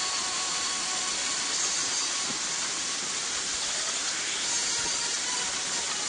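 Steady rushing hiss of water falling from a partly frozen waterfall into a mountain stream pool.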